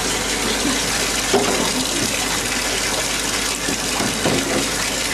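Water running steadily from a bathtub tap, a constant gush filling the tub.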